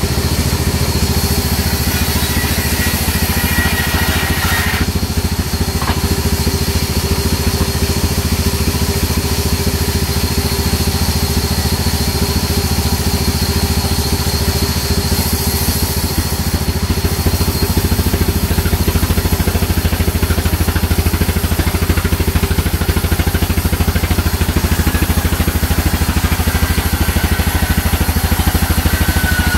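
Sawmill band saw running steadily with a deep, continuous hum while margosa (neem) timber is pushed through the blade. A thin high whine rises briefly near the start and again near the end.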